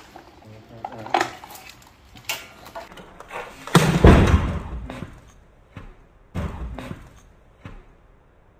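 A series of separate knocks and clunks, the loudest a heavy low thump about four seconds in and another solid one about two and a half seconds later.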